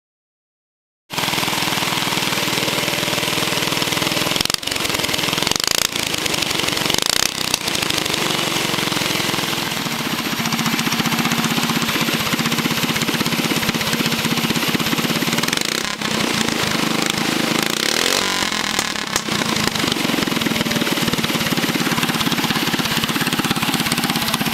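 Go-kart box stock single-cylinder engine with an open two-stage straight header exhaust, running loudly after about a second of silence. The revs rise and fall at times, with a brief rev up and back down past the middle.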